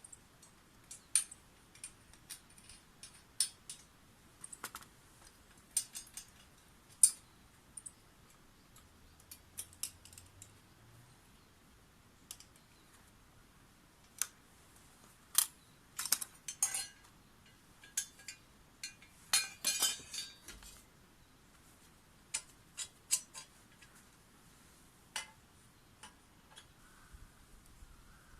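Irregular light clicks and clinks of small hard objects, a few dozen scattered unevenly, with a denser run of them about two-thirds of the way through; no engine running.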